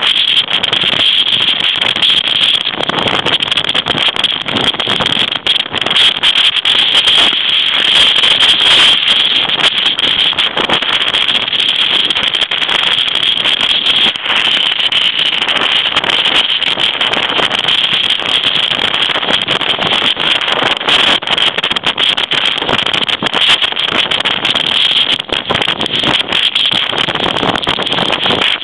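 Typhoon gale blasting over the microphone: a loud, continuous rush of wind that flickers with rapid gusts.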